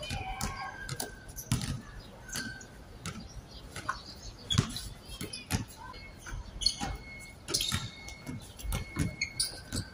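Pickup basketball play on an outdoor court: irregular thuds of the ball and players' feet on the court, with a few short high squeaks.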